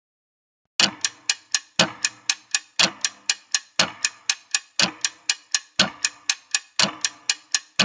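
Ticking clock sound effect, starting just under a second in: about four sharp ticks a second, with a heavier tick on each second, typical of a quiz countdown timer.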